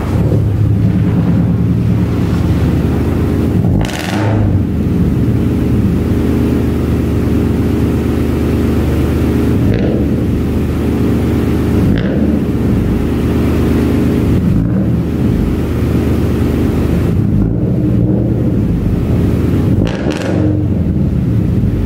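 Car engine running steadily at a fairly even speed, with brief rushes of noise about four seconds in and again near the end.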